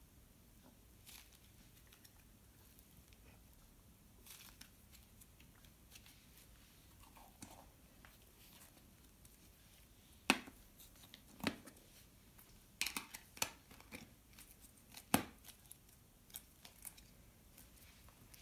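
Pink putty being squeezed, stretched and pulled apart by hand, giving scattered sharp snaps and pops. These are sparse at first, with the loudest handful between about ten and fifteen seconds in.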